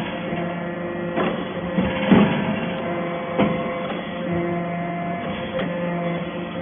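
Hydraulic metal-chip briquetting press running: a steady hum from its hydraulic power unit, with a few clunks as the press cycles and a briquette is pushed out along the chute. The loudest clunk comes about two seconds in.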